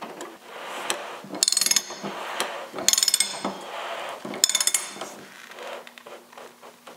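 Ratcheting water heater element wrench clicking in three short bursts about a second and a half apart, with light handling and rubbing between them, as a new heating element is tightened into the tank.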